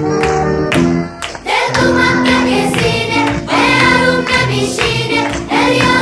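Background music: an instrumental passage, then a song with singing voices from about a second and a half in.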